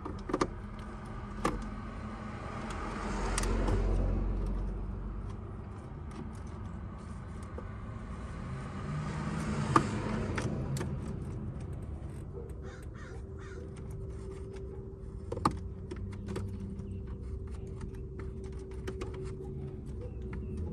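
Clicks and knocks of a car's plastic dash trim being pried and pulled loose, with a harsh rasping stretch about three to five seconds in.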